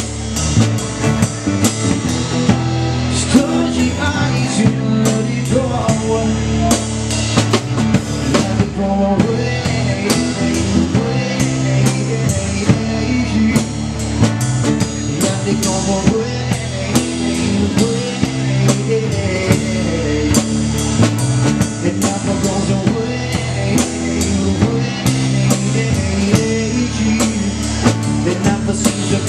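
Live rock band playing an instrumental passage, the drum kit to the fore with a steady beat of snare and bass drum over the band's held notes.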